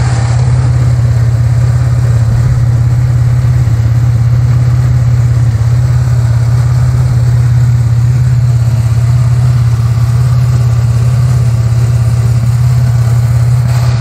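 Pontiac Grand Am's 3400 V6 idling steadily with a low, even hum. The engine is warm, but the electric radiator cooling fans have not kicked on: the fan circuit is faulty.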